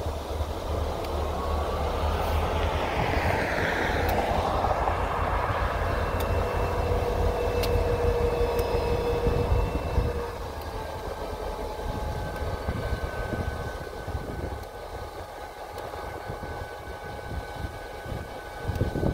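EMD SD40 diesel-electric locomotive's 16-cylinder two-stroke engine running with a steady low rumble, which eases about ten seconds in. A road vehicle swells past about three to four seconds in.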